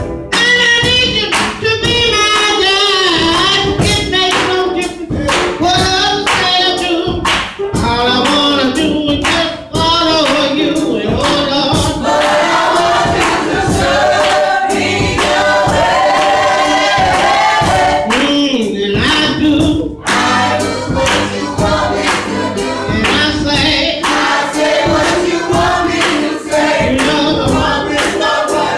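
Gospel singing, a group of voices singing together over a steady beat of regular strikes.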